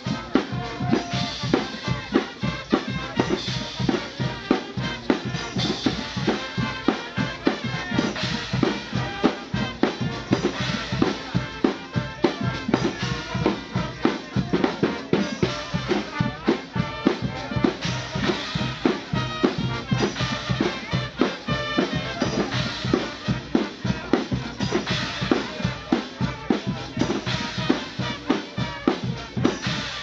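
A street band of drums and brass playing: a drum kit and a row of silver toms keep a steady, dense beat, with horns playing over it.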